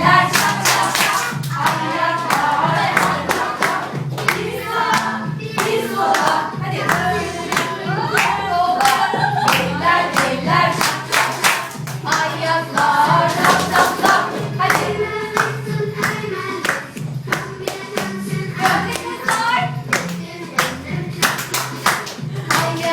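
Upbeat children's disco dance song with sung vocals, hand claps and a steady beat.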